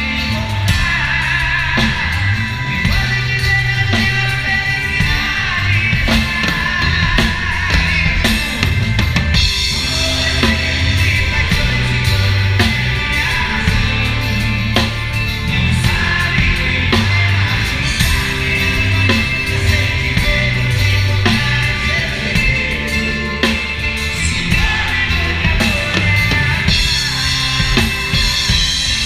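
Live sertanejo band with a drum kit close and loud, drums and Paiste cymbals over bass, guitar and singing, heard from the drummer's seat.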